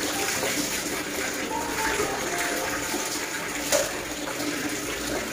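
Tap water pouring into a plastic basin already full of water: a steady splashing rush, with one sharper splash nearly four seconds in.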